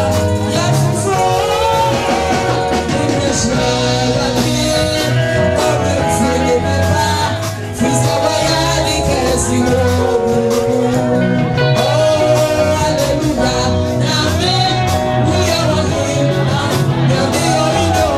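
Loud, upbeat church praise music: amplified singing over a bass line and a steady beat. The level dips briefly about seven and a half seconds in.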